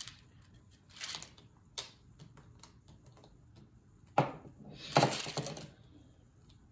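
Tarot cards being handled: short rustling riffles about a second in and again, loudest, about five seconds in, a sharp tap just after four seconds, and scattered light clicks between.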